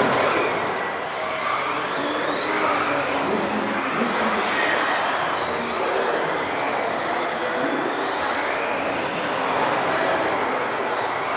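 Several modified-class electric off-road RC cars racing. Their motors whine high, rising and falling in pitch with the throttle, over a steady hiss.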